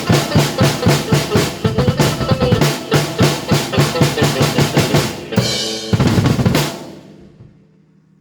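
Drum kit played in a fast, even beat of bass drum and snare over held keyboard notes, finishing with a splashy cymbal-heavy flourish about five to seven seconds in that then dies away.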